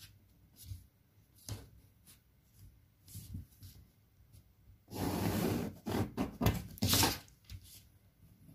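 Pencil and L-square ruler handled on a paper pattern on a table: a few light taps and knocks, then a little past halfway under a second of scraping and rustling as the ruler and paper are slid across the table, with two or three more short knocks after.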